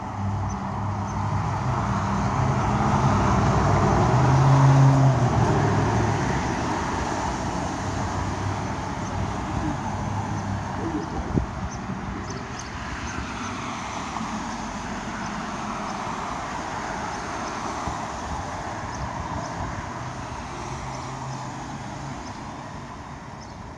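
Road traffic on a city street: cars passing with tyre and engine noise, the loudest pass swelling up about four to five seconds in and then fading. A sharp click comes about eleven seconds in.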